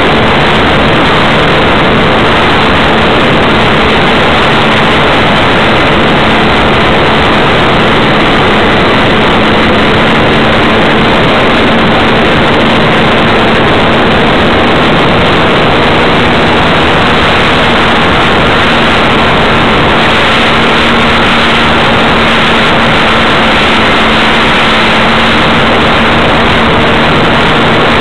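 Motor and propeller of a radio-controlled scale model PZL-104 Wilga running steadily, heard through a cheap onboard camera's microphone as a loud rushing noise with a faint steady hum.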